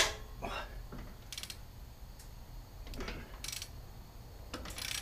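Hand socket ratchet clicking in three short bursts as a bolt is backed out, with one sharp metallic click at the very start.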